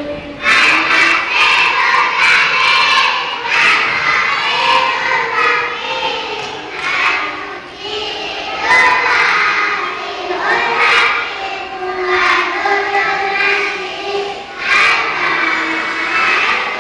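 A group of young children singing loudly in unison, close to shouting, in phrases of a second or two.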